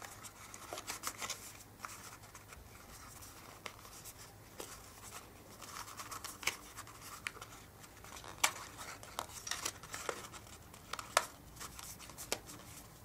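Hands handling and folding a small cardboard packet: scattered light clicks, taps and scrapes of card, a few sharper ones in the second half.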